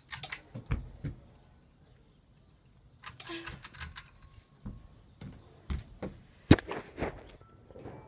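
Aloha Breeze ceiling fan running, with irregular sharp clicks and short rattles over a faint low background; the loudest click comes a little past halfway.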